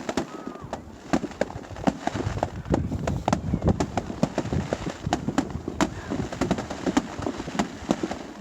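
Fireworks going off in quick, irregular bangs and crackles, several a second, with a denser low rumble of overlapping booms in the middle.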